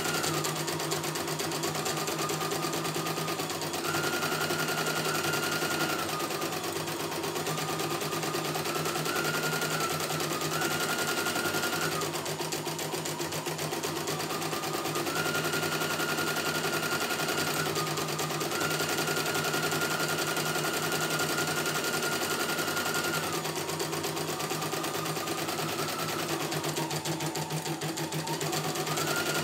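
CNY E900 computerized embroidery machine stitching a design: a fast, even run of needle strokes over a motor whine that steps between two pitches and drops out briefly twice.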